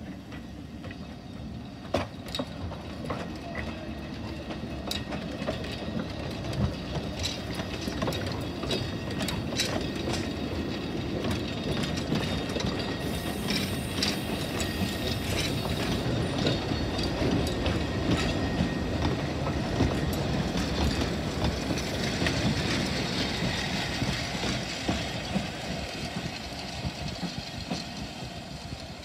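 Narrow-gauge steam train pulling away and running past, its coaches rumbling and its wheels clicking over the rail joints. The sound grows louder through most of the time and eases slightly near the end as the train draws away.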